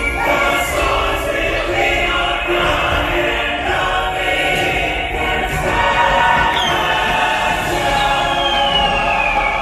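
Dark-ride show soundtrack: choir singing over orchestral music, with a falling whistle-like glide about eight seconds in.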